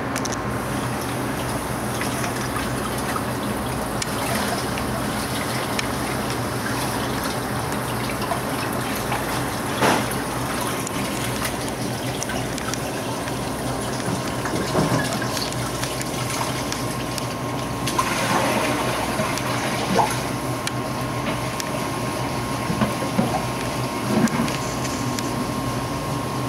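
Water running into a bowl of cucumbers: a steady rush of water, with a few short louder sounds, the clearest about ten seconds in.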